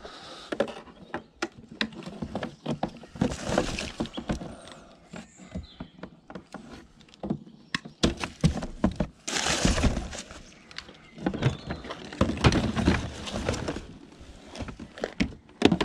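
Hands rummaging through a box of discarded household junk and pulling out tangled electrical cables: irregular rustling with scattered clicks and knocks as plugs and objects clatter together.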